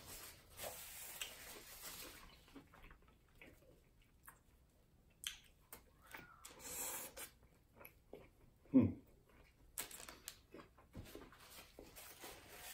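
Faint eating sounds of a double cheeseburger: a paper napkin rustling, a bite into the burger about six seconds in, and chewing with small wet clicks. A short low vocal sound, falling in pitch, comes about nine seconds in.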